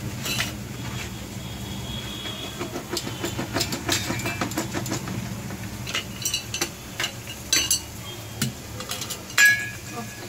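A kitchen knife sawing back and forth through a plastic PVC pipe, giving irregular scraping strokes and clicks as the blade bites into the plastic, over a steady low hum. A sharp metallic clink comes near the end.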